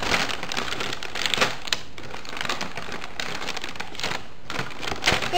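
Brown paper takeout bag rustling and crinkling as a hand rummages inside it, with irregular crackles.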